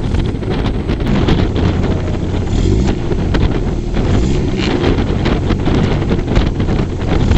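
Strong wind buffeting the microphone: a loud, steady low rumble with scattered crackles.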